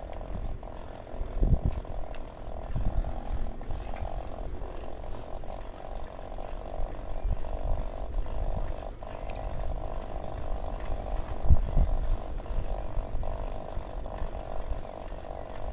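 Bicycle riding along a paved path: a steady whirring hum throughout, with wind buffeting the microphone in low gusts.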